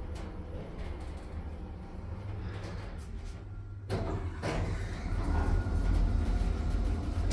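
Otis Gen2 belt-driven lift running with a steady low hum, then a click just before four seconds in as the automatic sliding car and landing doors start to open, their opening rush and rumble louder to the end.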